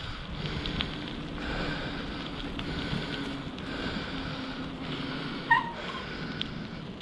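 Wind buffeting the microphone on a moving bicycle, over a steady rolling hum and a few light clicks. A brief high squeak sounds about five and a half seconds in.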